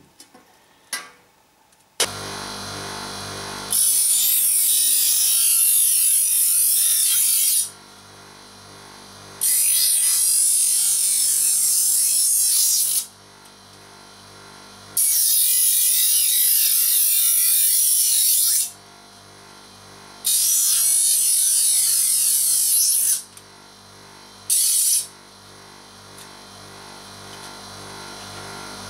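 Technipro TP125 bench grinder switched on about two seconds in and running steadily, with the thin sheet-metal edge of a 5-litre beer keg's cut-out door pressed against the wheel in four long grinding passes of a few seconds each and one brief touch near the end: the cut edge is being ground smooth.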